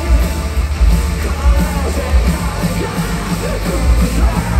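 Live rock band playing loud, with heavy drums and bass under a singer's voice.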